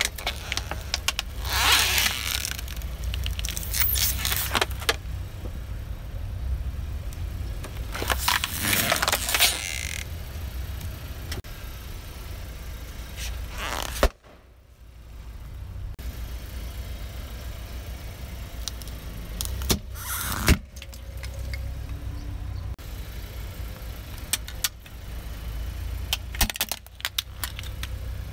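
An Audi's tyre rolling slowly over plastic objects (a spray bottle, a red plastic toy, a toy xylophone) and crushing them, with several bursts of crackling and a few sharp snaps over the steady low rumble of the idling engine.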